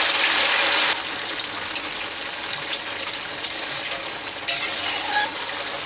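Cubes of Japanese tofu deep-frying in hot oil in a wok, a steady hiss with fine crackling. The hiss drops suddenly about a second in and carries on more softly.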